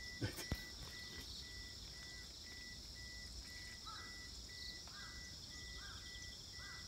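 Insects chirping and buzzing: a steady high buzz with a regular chirp about twice a second, joined by a few faint higher chirps in the second half. Two soft clicks sound near the start.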